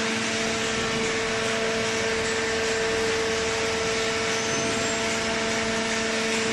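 Automatic hydraulic baling press running: a steady machine hum with an even hiss, unchanging in level.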